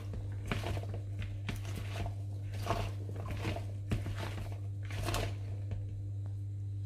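A hand tossing diced raw potatoes and chopped spring onion stems with salt in a plastic bowl: irregular soft rustles and clicks of the pieces shifting against each other and the bowl, over a low steady hum.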